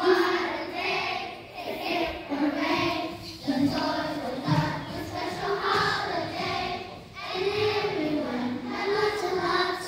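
A children's choir singing a song together, held notes moving up and down in a simple melody.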